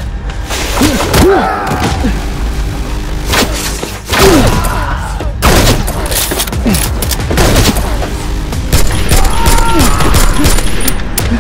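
Rapid volleys of gunfire-like shots as a Nerf blaster is fired, with short sounds that slide up and down in pitch between the volleys.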